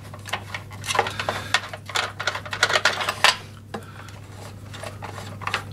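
Metal socket tool clicking and clinking on the battery-cover clamp bolts of a lawn mower as they are loosened and undone. The small irregular metallic clicks come several a second for about the first three and a half seconds, then thin out and grow fainter.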